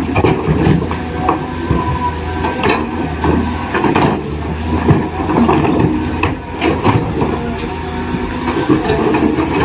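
Toy RC excavator running on its small electric motors and plastic gears: a steady hum with short whines, and frequent clicks and clattering knocks from its moving parts.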